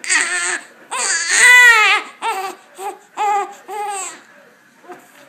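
Newborn baby crying in a series of short wails, the longest and loudest about a second in, then shorter cries that die away near the end.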